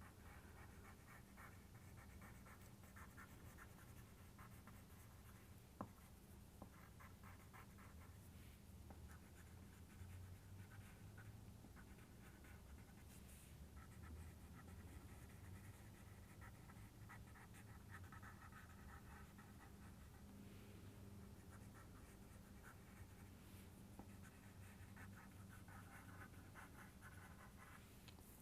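Faint scratching of a drawing tool in clusters of quick short strokes, light outlining of petals, over a steady low hum, with a single sharp click about six seconds in.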